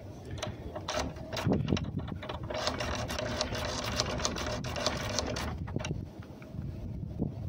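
Lock pick and tension wrench working the pins inside a seven-pin Travex door lock cylinder: rapid metallic clicking and rattling, densest through the middle and thinning near the end.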